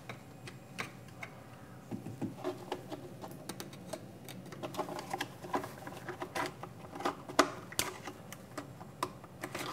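Irregular clicks and light metallic taps of a hand tool working the gib adjustment screws on a milling machine's Z-axis column, taking up play in the slide.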